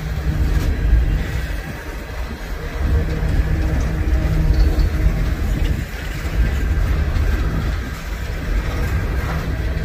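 Freight train passing: a steady, heavy low rumble from its diesel locomotives and rolling cars.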